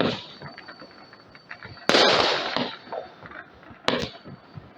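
Fireworks going off: a loud bang about two seconds in whose noise fades over about a second, and another sharp bang about four seconds in, with smaller pops between.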